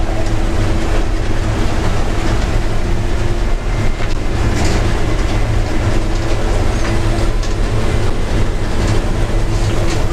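Bizon Z056 combine harvester running under load while cutting oats, heard from inside the cab. Its Andoria SW 400 diesel engine and threshing machinery make a loud, steady drone with a constant hum.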